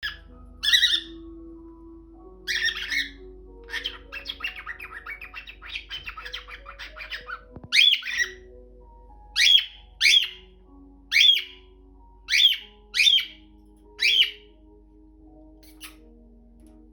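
Cockatiel calling: a couple of harsh squawks, a quick run of short chirps, then a series of loud, arching calls about a second apart. Faint background music plays underneath.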